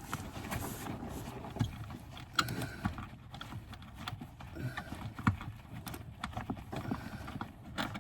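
Socket wrench turning a seat-mounting bolt out, with irregular ratchet clicks and knocks and a few short squeaks.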